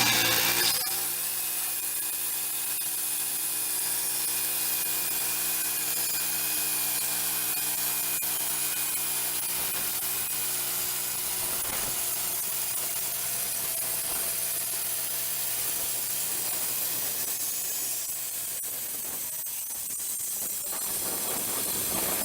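Wood-Mizer band sawmill sawing a black walnut log: the mill's engine runs steadily while the band blade cuts through the wood with a steady hiss, easing slightly near the end.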